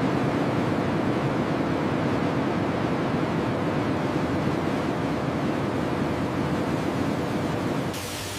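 Steady rushing noise of machinery ambience, dipping slightly in level near the end.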